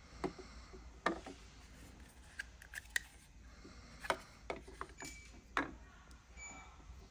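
Clicks and taps of a hard plastic phone case and belt-clip holster being handled on a wooden table, a handful of short sharp knocks a second or so apart, the loudest about a second in.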